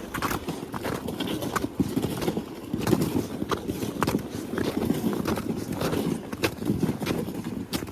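Footsteps of a person walking through snow, an uneven run of crunching steps.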